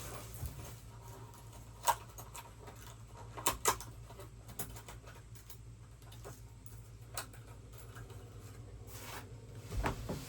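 Scattered light clicks and knocks of small bolts, washers and hand tools being handled, the sharpest about two seconds and three and a half seconds in, over a low steady hum.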